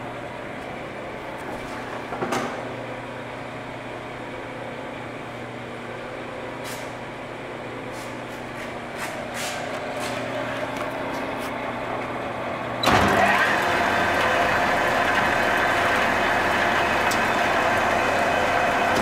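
Time-Saver Speed-Belt wide-belt sander with its machinery running: a steady hum with a few clicks. About thirteen seconds in, a much louder steady hiss and whine starts suddenly as more of the machine is switched on from its control panel.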